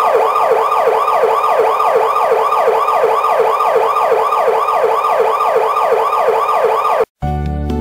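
Siren sound effect in a fast yelp pattern: a wailing tone sweeping in pitch about three times a second, which cuts off abruptly near the end. Acoustic guitar music starts right after.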